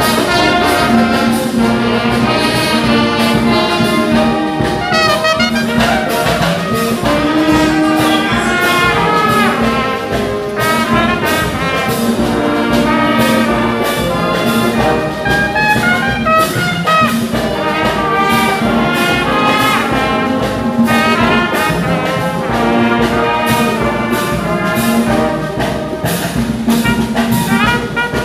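Police brass band of trumpets, trombones, clarinets, flutes and saxophones playing a tune together over a steady drum beat.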